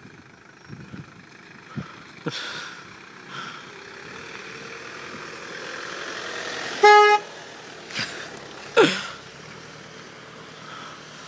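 A vehicle horn toots once, briefly, about seven seconds in, over a rushing vehicle noise that grows louder in the seconds before it. Two short, sharp sounds follow about a second apart.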